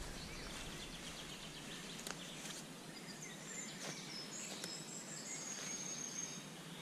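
Forest ambience: a steady hiss of background noise with a bird's high, thin whistled notes through the middle, and a few faint clicks.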